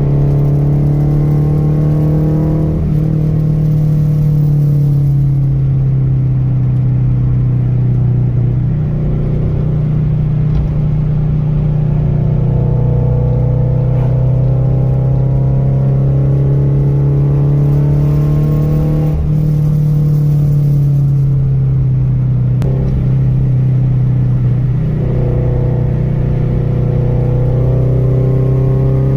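A motor vehicle's engine running steadily while driving, its pitch drifting slowly up and down with speed over a constant rumble.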